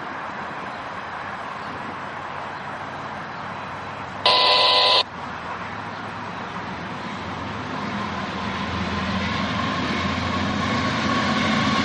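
A CSX GE diesel locomotive leading a freight train approaches, its engine rumble growing steadily louder over the last few seconds. About four seconds in, a loud burst under a second long starts and stops abruptly.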